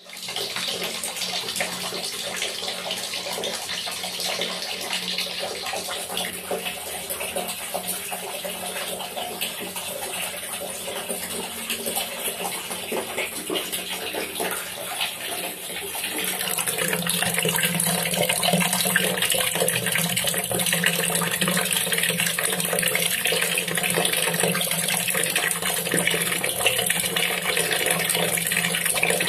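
Water falling into a bucket already holding water: a steady, dense splashing that gets louder about halfway through.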